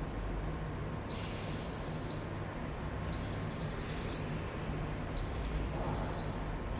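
Gevi grind-and-brew drip coffee maker beeping three times, each a steady high beep about a second long, about two seconds apart: the signal that brewing has finished.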